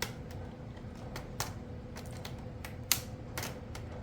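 Irregular sharp plastic clicks and taps as Kato Unitrack N scale track sections are handled and pushed to snap their joiners together, the loudest about one and a half and three seconds in, over a faint steady hum.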